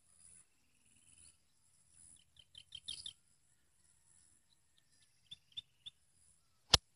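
Small birds chirping in short runs of quick high notes, over a steady faint high-pitched insect buzz. A single sharp click near the end is the loudest sound.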